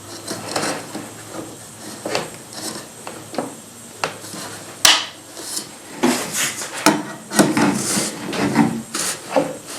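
Irregular knocks, clatter and scraping of wood and metal being handled, with no machine running.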